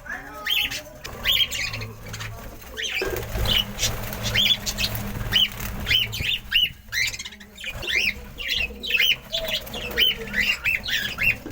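Budgerigars chirping and squawking: a quick run of many short calls, each rising and falling in pitch.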